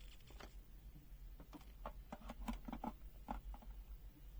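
Faint, irregular small clicks and taps from handling a digital multimeter and its test leads while it is set up for an AC mains voltage measurement.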